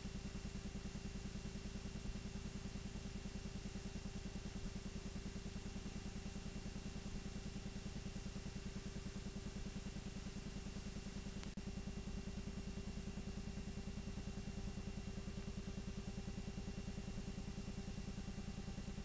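8mm film projector running, a fast, even clatter of the film advance with a steady hum, and a single click about halfway through.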